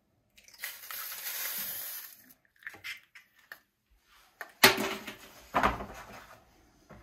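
Raw egg sizzling as it lands on a dry, preheated stainless steel electric skillet, the hiss dying away after about two seconds. Then a few light clicks and two sharp knocks about a second apart.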